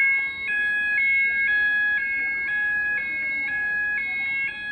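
Fire alarm sounders going off continuously, on what is taken for an Apollo XP95 system. One steady tone sounds under a two-tone warble that switches pitch about every half second.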